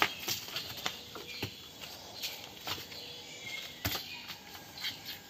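Scattered hoof knocks and scuffs as a cow and calf shift about in their stall. A sharper knock comes right at the start and another about four seconds in.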